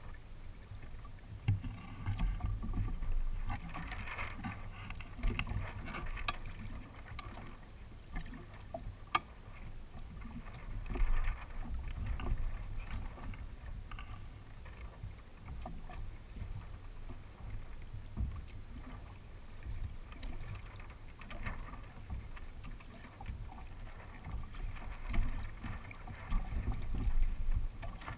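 Water swishing and gurgling against the hull and outrigger float of a Hobie sail kayak under way, with a low rumble that swells and fades unevenly and a couple of sharp ticks partway through.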